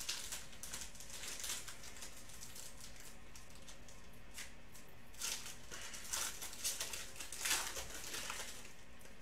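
Foil wrapper of a Panini Prizm football card pack crinkling as it is pulled open and handled, in short scattered rustles that come more often in the second half.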